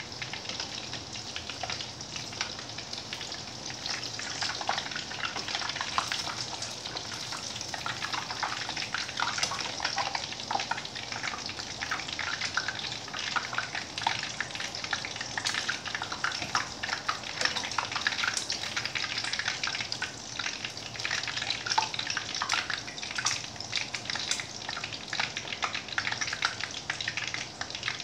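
Pork meat patties shallow-frying in oil in a pan: a steady sizzle with constant spitting crackles.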